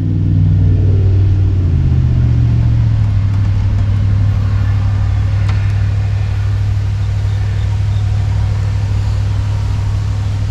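Heat pump outdoor unit starting up: a low hum builds over about a second, shifts briefly in pitch, then settles into a steady drone, with a faint click about five and a half seconds in.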